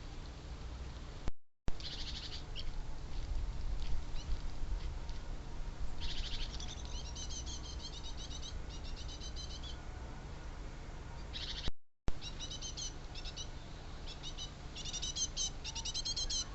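Small birds chirping in quick high twittering runs, busiest in the middle and near the end, over a steady low rumble. The sound drops out to silence twice, briefly.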